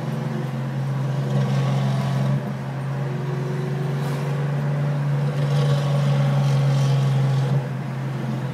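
LS2 V8 of a Pontiac GTO with headers and a custom exhaust, running with a steady deep drone. It swells louder twice, about a second and a half in and again from about four to seven and a half seconds.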